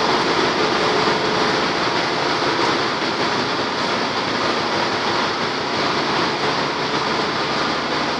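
Loud, steady din of running machinery in a bulk carrier's engine room: an even wash of noise with faint steady hums underneath.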